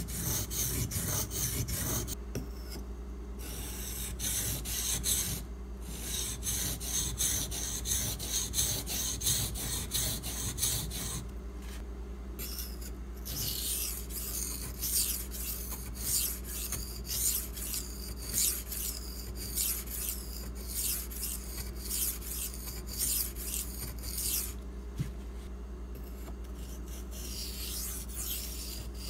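Steel knife blade stroked rapidly back and forth on a soaked 400-grit Imanishi Latte water stone: a scratchy rasping, stroke after stroke, broken by a few short pauses. This is coarse grinding at the base of the edge to correct an obtuse, uneven bevel angle.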